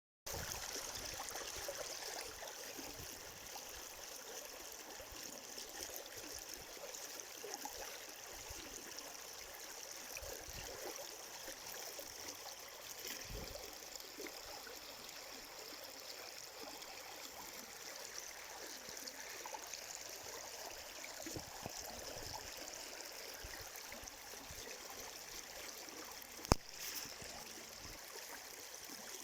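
Mountain river flowing over rocks, a steady rushing and burbling of water. A single sharp click sounds near the end.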